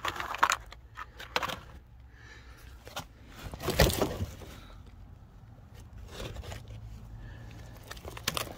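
Old car carpet and jute underlay pulled back by hand over a rusted floor: irregular rustling and scraping, loudest about four seconds in.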